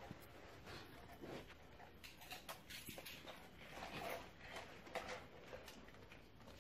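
Faint scattered knocks and rustles, a little louder about four seconds in, as a plastic toy remote-control car is picked up and handled on a wood floor.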